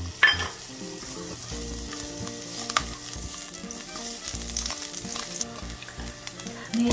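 Carrot slices frying in oil in a nonstick frying pan: a steady sizzle, with a plastic spatula stirring and scraping them and ticking against the pan. A sharp knock comes just after the start.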